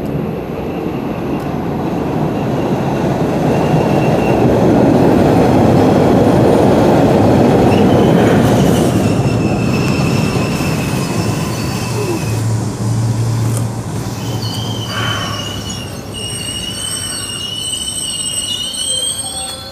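MBTA Orange Line subway train approaching and running along the platform. Its rumble grows loudest about midway, then the wheels squeal with high, steady tones through the second half.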